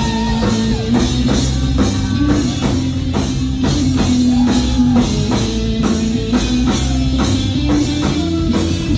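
Live rock band playing: a drum kit keeps a steady beat under electric guitar and bass.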